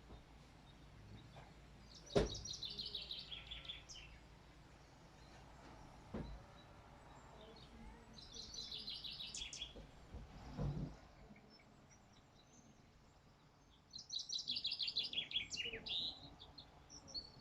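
A songbird singing three separate phrases, each a quick series of notes falling in pitch over about two seconds, with pauses of several seconds between them. A few short, low thumps are also heard.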